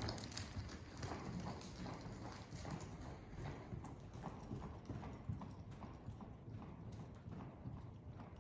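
A horse's hooves striking the sand footing of an indoor arena in a steady rhythm as it moves along the rail under saddle.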